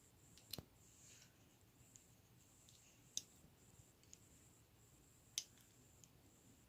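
Lego bricks clicking and snapping together as the model is built: three sharp clicks, about half a second, three seconds and five seconds in, with a few fainter ticks between them.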